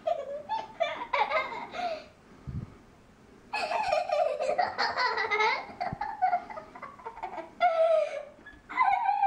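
A young girl giggling and laughing in repeated high-pitched bursts, with a short pause a couple of seconds in.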